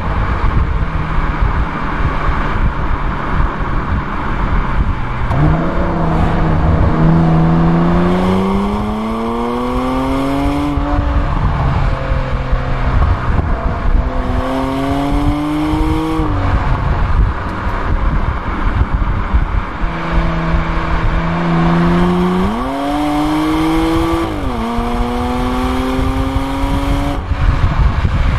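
Porsche Macan S twin-turbo V6 with the Porsche Sport Exhaust, heard from inside the cabin while driving. The engine note rises in pitch three times as the car accelerates, with sudden drops in pitch at gear changes, over steady road and wind noise.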